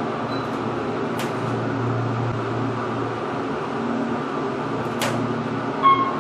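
Elevator car travelling one floor: a steady hum and rumble inside the cab, with two sharp clicks, and a short pitched ding near the end as it arrives.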